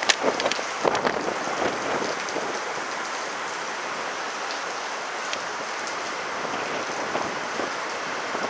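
Steady rain falling, with scattered sharper drop hits in the first second.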